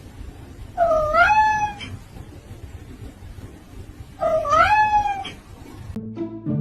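A cat meowing twice: two long meows a few seconds apart, each dipping in pitch and then rising. Steady low background noise runs beneath them, and near the end the sound cuts to music.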